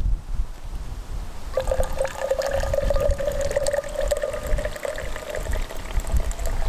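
Liquid poured into a cup, starting about a second and a half in, its ringing pitch slowly rising as the cup fills. Wind rumbles on the microphone throughout.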